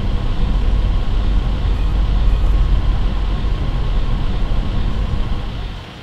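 A loud, steady low rumble with a hiss above it, falling away sharply near the end.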